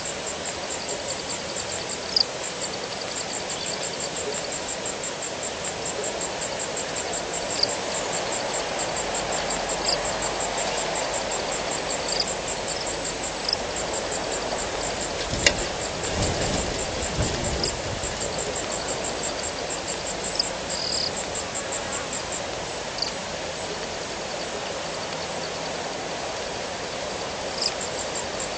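Outdoor bush ambience at a waterhole: insects such as crickets give a steady, fast high-pitched trill, with scattered short frog calls, over a steady hiss that swells through the middle. About halfway through there is a single sharp click, followed by a low rumble lasting a couple of seconds.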